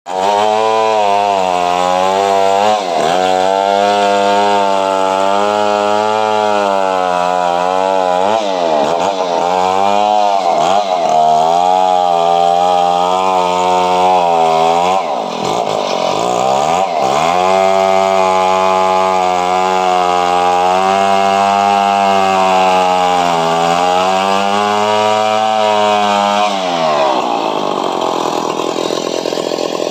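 Chainsaw engine running at high revs while cutting a coconut tree trunk, its pitch dipping several times under load, then falling away and fading near the end.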